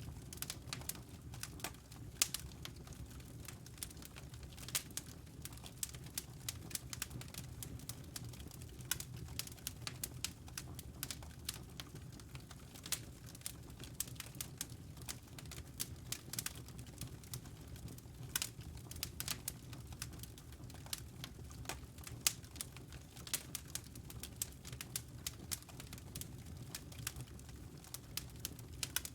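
Wood fire crackling in a fireplace: irregular sharp snaps and pops, several a second, over a steady low rumble.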